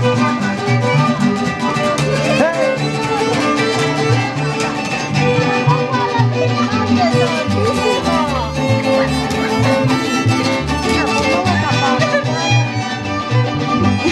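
String-band music: a violin melody sliding between notes over strummed guitars and a moving bass line.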